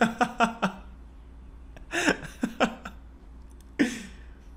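A man laughing in quick, repeated bursts of 'ha' pulses: one run right at the start, another about two seconds in, and a shorter burst near the end.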